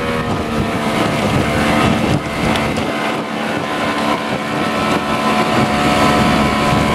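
Yamaha 90 hp two-stroke outboard running steadily at planing speed, with a steady engine pitch over the rush of water spray and wind buffeting the microphone.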